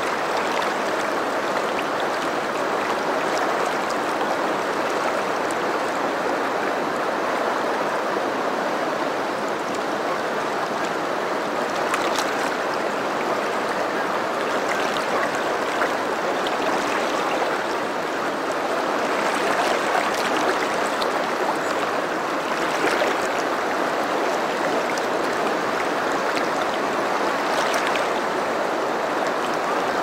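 River water flowing and swirling over rocks in a shallow stream: a steady, even rushing, with a few brief small splashes now and then.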